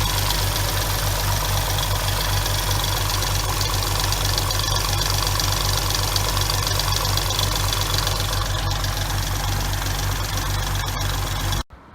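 2006 Hyundai Tiburon's 2.7-litre V6 idling with a steady valvetrain tick, the sign of clogged hydraulic lash adjusters that are not getting oiled properly. The sound cuts off suddenly near the end.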